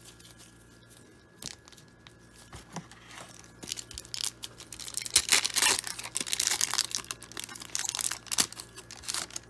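Foil wrapper of a baseball-card pack being torn open and crinkled by hand: a dense crackle with sharp ticks from about four seconds in until near the end, after a few light clicks.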